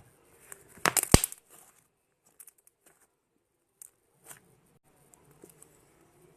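Fluffy slime made of borax, glue and shaving cream being squeezed by hand, crackling and popping in a quick cluster about a second in, then a few faint pops.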